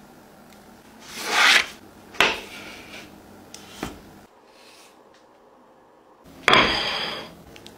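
A few rasping rubs and scrapes of food being handled on a baking tray, the loudest near the end as a metal spatula scrapes under a baked potato cup on the parchment-lined tray, starting suddenly and fading within about a second.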